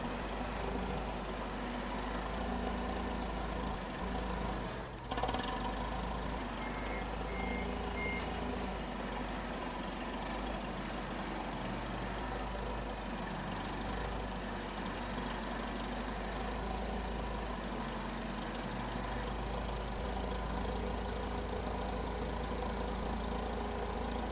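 Steady machine-like hum with a constant low drone and several held tones, briefly dipping with a click about five seconds in.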